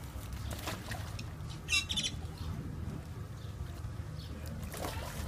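A short, high-pitched animal call about two seconds in, over a steady low rumble.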